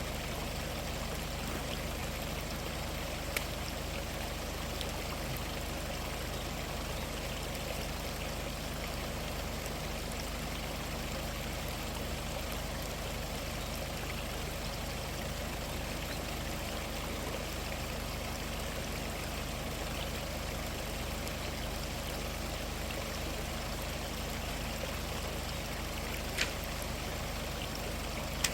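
Mountain stream water rushing steadily, with two brief sharp clicks, one a few seconds in and one near the end.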